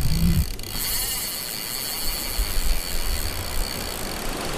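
Intro title sound effect: a short low boom at the start, then a steady rumbling hiss.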